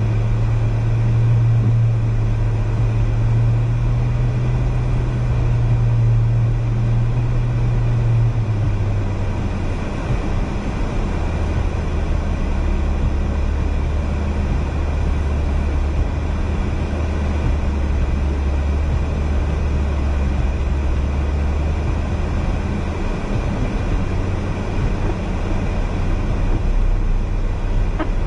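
Car driving on a snow-covered road, heard from inside the cabin: a steady low engine drone over a constant rush of tyre and wind noise. The engine note drops about ten seconds in and rises again a few seconds before the end.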